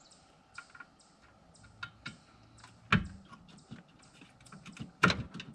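Hand work on radiator hoses, clamps and fittings: scattered light clicks and taps, with two louder knocks about three and five seconds in.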